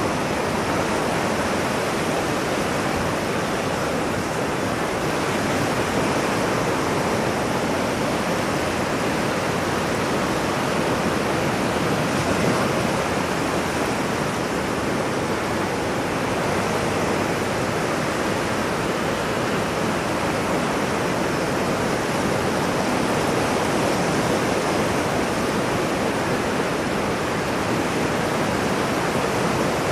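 Ocean surf as a steady, even rush of breaking waves, without distinct separate swells.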